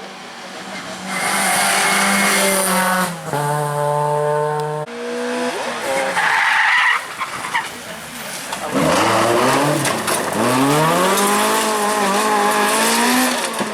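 Rally car engine revving hard close by, its pitch dropping at quick gear changes and then climbing again under full throttle. A rush of hiss from the tyres sliding comes about a second in.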